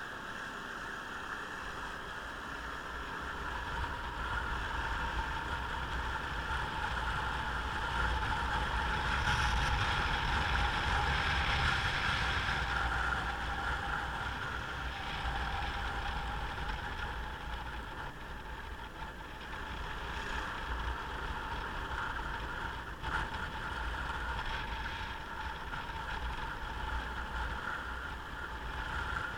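Motorcycle riding along: the engine running steadily under wind and road noise on the microphone, growing louder from a few seconds in to a peak about a third of the way through, then easing off.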